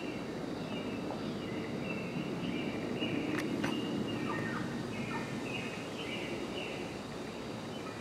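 Steady background noise with faint bird-like chirps throughout, and two sharp clicks about three and a half seconds in.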